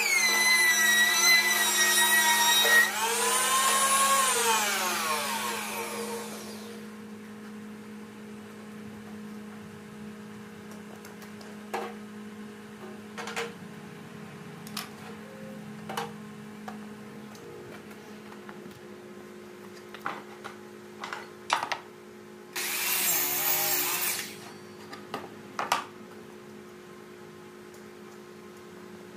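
A woodworking power tool's motor runs with a high whine, then is switched off and winds down, its pitch falling away over a few seconds. A steady machine hum remains, with scattered knocks of wood being handled and a brief burst of hiss about 23 seconds in.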